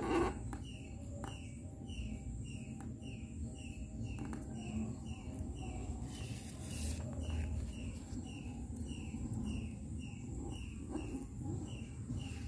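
Short high chirps repeated evenly about twice a second, typical of a small bird calling over and over. About six seconds in there is a brief rustle of the paper sheet being handled and folded.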